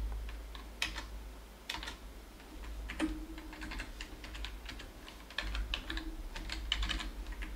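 Computer keyboard typing: irregular single keystrokes as text is deleted and retyped in a terminal editor, over a steady low hum.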